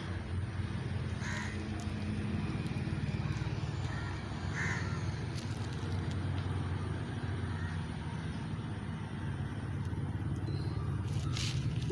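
Outdoor background: a steady low rumble, with two faint short calls in the distance, about a second and about five seconds in, and a few faint clicks near the end.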